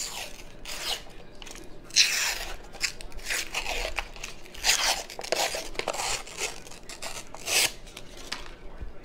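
Paper label being peeled and torn off a cardboard crescent-roll dough can: a run of rasping rips and rustles, the loudest about two seconds in, near the middle and near the end.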